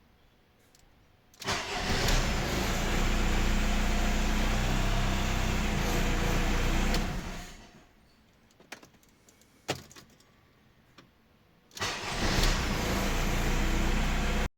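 Audi A6 engine started with the repaired starter: it catches quickly about a second and a half in and runs steadily for about six seconds, then dies away. After a few separate clicks, it starts again near the end and keeps running.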